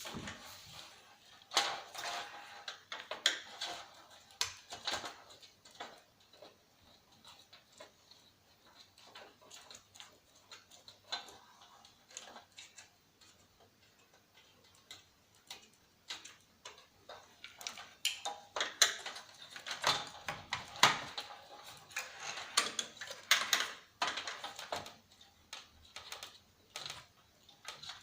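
Irregular clicks, ticks and small knocks of screws being backed out of a CRT TV/DVD combo's plastic and metal casing by hand and of parts being handled, busier in two stretches early and late.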